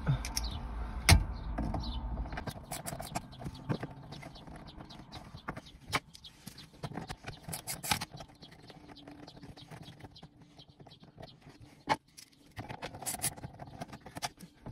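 Scattered small clicks, taps and a few sharper knocks of plastic dashboard trim and radio knobs being handled and pulled off by hand.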